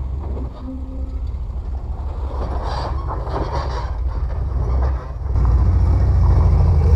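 Off-road rock crawler's engine running under load while climbing a steep rock ledge: a steady low rumble that gets louder after a brief dip about five seconds in.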